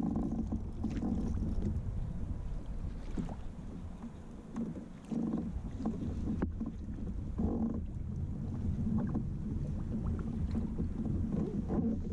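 Steady wind rumble buffeting the camera microphone, with scattered brief knocks, clicks and rustles of handling.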